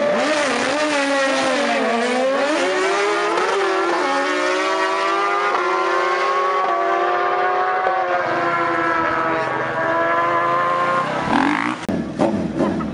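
Sportbike engines at high revs on a drag run, the pitch climbing and dropping back several times as they change gear, then holding fairly steady. Near the end, a sharp rise in revs followed by short throttle blips.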